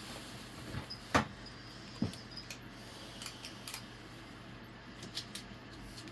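Hand tools being handled and set down: a few sharp metallic clicks and knocks, the loudest about a second in and another about two seconds in, with fainter ticks after.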